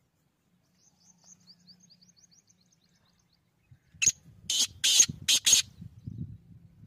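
Black francolin calling: five loud, harsh notes in quick succession about four seconds in, with a low rumble beneath. Before the call comes a faint, rapid, high twitter from a small bird.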